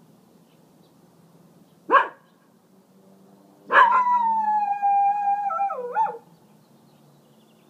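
Small dog gives one short bark, then about a second and a half later a single long howl of over two seconds at a steady, slightly falling pitch that wavers before it breaks off. It is warning off coyotes it has heard below.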